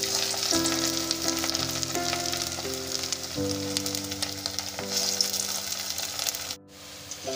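Spinach-and-gram-flour kofta ball deep-frying in hot oil, a steady crackling sizzle. Background music with held notes runs underneath, and the sound cuts out briefly near the end.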